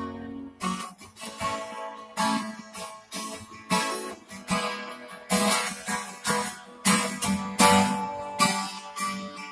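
Acoustic guitar being strummed, chords struck in a steady rhythm.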